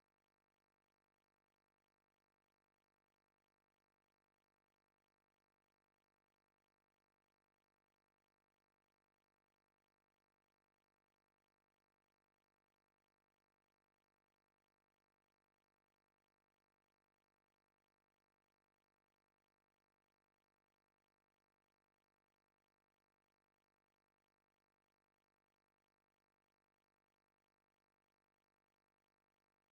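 Near silence: a steady, featureless noise floor with no sound events.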